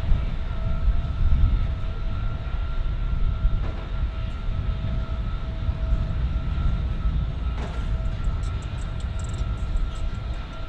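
Deep, steady rumble of a passing boat's engines, with a faint steady whine on top.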